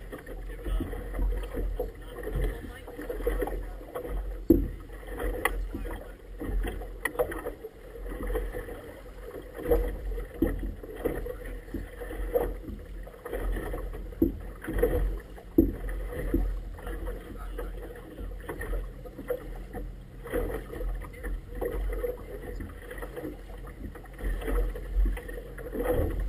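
Small waves slapping and sloshing irregularly against the tube of an inflatable boat, in uneven surges every second or so, over a low rumble of wind on the microphone.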